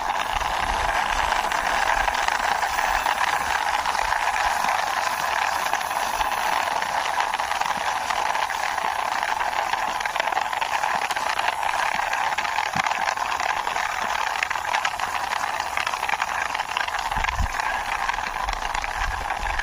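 Plastic wheels of a toy jeep rolling steadily as it is pushed along by hand, a continuous rattling hiss with a few faint low rumbles.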